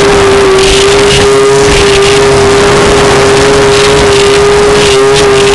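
Snowmobile engine running loud and close at steady high revs, its pitch holding almost constant, with recurring bursts of hiss over it.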